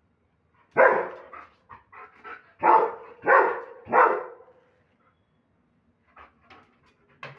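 German Shepherd barking loudly: one bark about a second in, a few short softer sounds, then three barks in quick succession, followed after a pause by fainter short sounds near the end.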